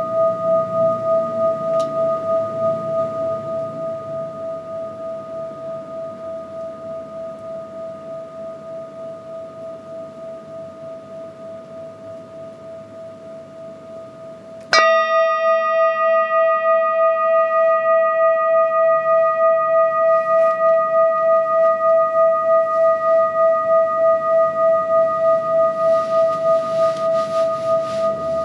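Large metal singing bowl ringing with one steady hum and higher overtones, pulsing in a slow, even wobble. It fades for about half the time. Then it is struck once, sharply, and rings out loud again with a brighter set of overtones that slowly die away.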